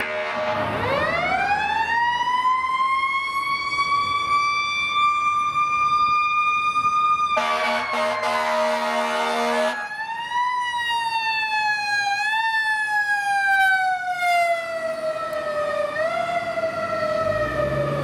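Fire engine's mechanical siren winding up from a low growl to a steady high wail. About seven seconds in, a loud air-horn blast lasts roughly two seconds. The siren then coasts slowly down in pitch, with a few short boosts back up.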